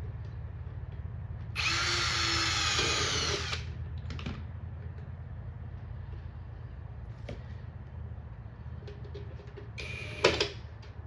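Power drill driving a pan-head wood screw through a sheet-metal letter into wood, running for about two seconds with a slightly rising whine, then a short second burst near the end. A steady low hum runs underneath.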